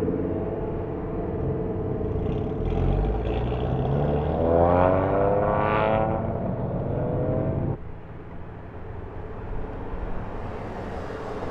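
Car engine accelerating, its pitch climbing steeply partway through. About two-thirds of the way in the engine sound cuts off abruptly, leaving a quieter rumble.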